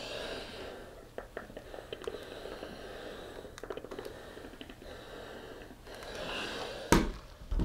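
Clothes iron sliding and pressing over a cotton collar piece on a padded ironing board: soft rubbing and hissing with small taps. A sharp thump near the end.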